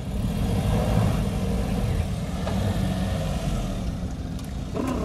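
Maruti Suzuki Celerio's small three-cylinder engine running under load as the hatchback climbs a steep dirt track, a steady low rumble.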